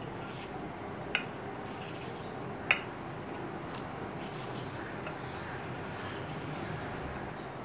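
Quiet room tone with a faint steady high whine and a few light clicks from biscuits being set down in a glass dish; the two sharpest come about a second in and just under three seconds in.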